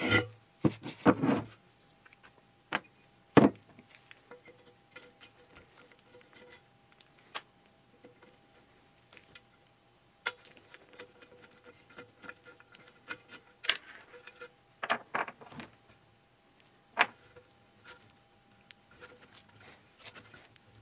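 Scattered metallic clicks, taps and knocks of an antique copper soda-acid fire extinguisher being handled and taken apart by hand, as its cap comes off and its hose is worked loose. The loudest knock comes about three and a half seconds in.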